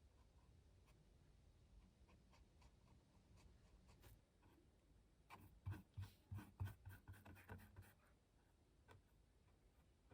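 Faint scratching of a pen on paper, with a run of soft taps and knocks between about five and eight seconds in.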